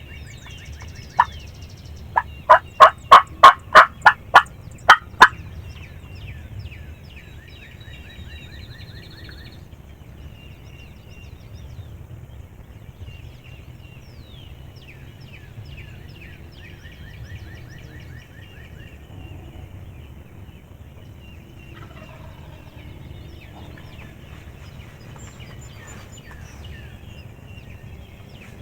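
A series of about ten loud, evenly spaced turkey yelps over some three seconds, close to the microphone as from a hunter's turkey call, after a single sharp note. Songbirds sing faintly throughout.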